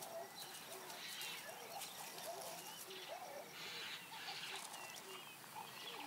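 Faint natural ambience of many birds calling, their short chirps and whistles overlapping.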